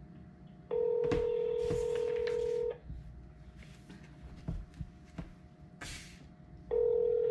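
Ringback tone of an outgoing call heard through a phone's speaker, meaning the line is ringing at the other end. One two-second ring comes about a second in, then about four seconds of quiet, and the next ring starts near the end. A few faint clicks fall in the gap.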